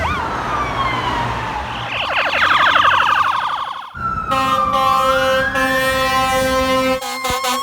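Fire truck siren and air horn. First a siren sweeps down in pitch. After a brief break the air horn blasts steadily while a siren winds up in pitch. Near the end the siren switches to rapid pulsing tones.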